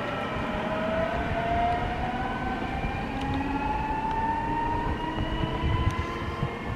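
Electric motors of an S-Bahn electric multiple unit whining as the train accelerates away from the station, several tones rising slowly and steadily in pitch over a low rumble.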